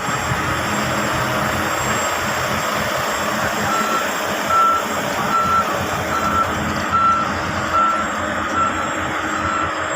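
Heavy mining machinery running steadily, with a reversing alarm starting about four seconds in and beeping one steady tone at an even rate, a little more than one beep a second.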